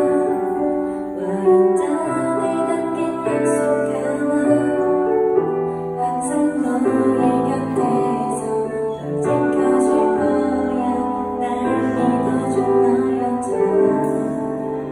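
A woman singing a Korean pop ballad live into a microphone over piano accompaniment.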